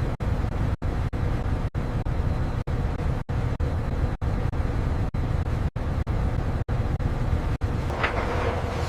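A loud, steady low rumble, broken by very short silent gaps about twice a second.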